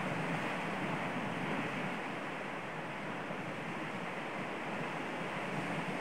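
Sea waves breaking and washing over a rocky shoreline: a steady rushing surf.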